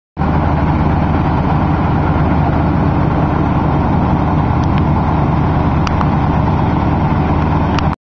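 Machinery running steadily at a grain pile, a loud, even engine-like drone with a low hum. A few faint, brief high chirps sound in the second half.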